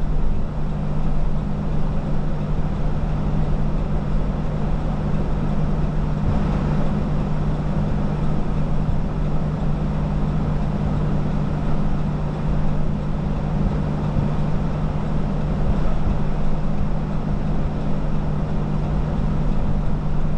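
Steady engine and road noise inside a moving car, with a constant low drone.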